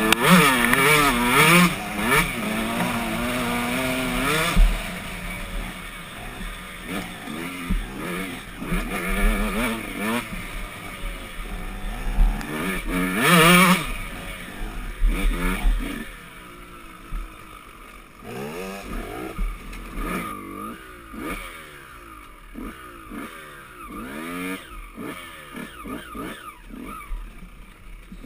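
Dirt bike engine heard from on the bike while riding, revving up and dropping back over and over as the throttle is worked through the gears. It is loudest in the first few seconds, then settles into a run of shorter, quicker revs later on.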